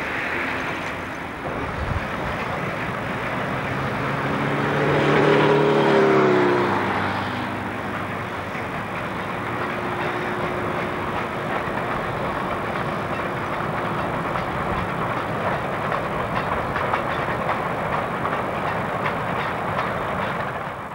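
J & A Brown 10 class steam locomotive passing close by while working hard. Its noise swells to its loudest about five to six seconds in, where a pitched note bends as the engine goes by.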